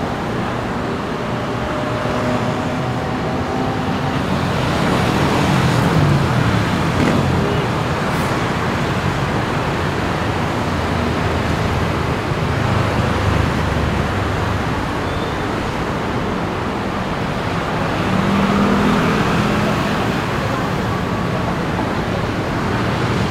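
Steady road traffic on a city street: engines running and cars passing, swelling as vehicles pass close about six seconds in and again about nineteen seconds in.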